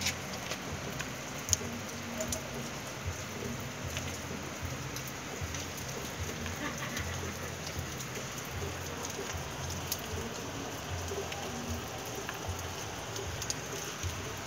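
Rain falling steadily, with scattered sharp drip clicks.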